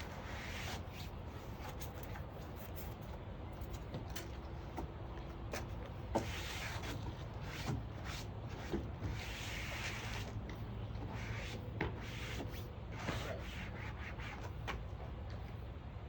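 Brushing or rubbing strokes and scattered light knocks on the van floor, from cleaning it down before the subfloor goes in.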